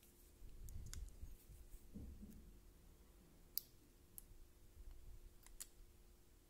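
Near silence with a few faint, scattered clicks and soft handling noise from a thumb pressing and working the flexible printed circuit (FPC) ribbon against an opened calculator's LCD.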